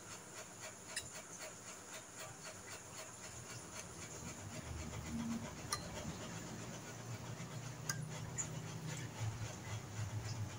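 A dog panting quickly and evenly, with a few light sharp clicks.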